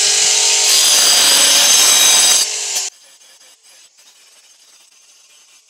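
Angle grinder running at full speed, its disc cutting through the drip edge of a roof tile: a steady whine under a loud grinding hiss. The cutting ends about two and a half seconds in, the motor whines alone for a moment, then it stops about three seconds in, leaving only faint background sound.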